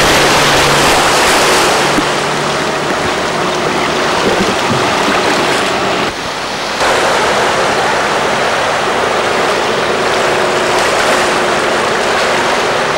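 Floodwater rushing and washing across a flooded street, a loud, steady wash of water noise. A car's engine hum and splashing are under it for the first two seconds as the car pushes through the water. There is a brief break about six seconds in.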